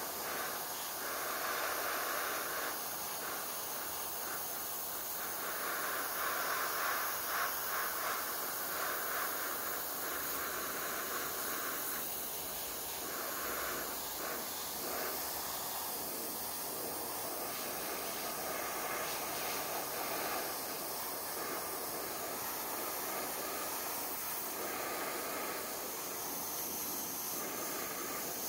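Airbrush spraying paint: a steady hiss of air, louder in stretches as the trigger is worked.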